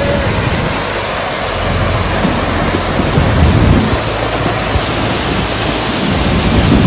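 Waterfall rushing loudly and steadily, with low buffeting of wind on the microphone about halfway through and again near the end.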